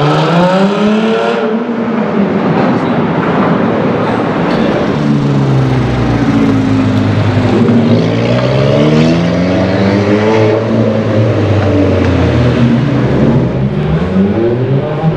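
High-performance supercar engine accelerating hard through the gears in a tunnel. The pitch climbs and drops back at each upshift, several times over.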